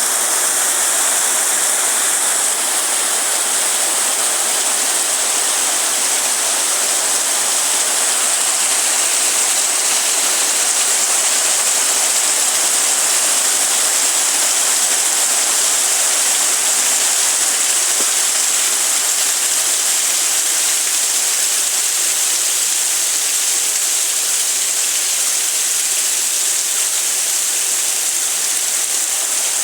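Steady rain falling, a continuous even hiss strongest in the high range.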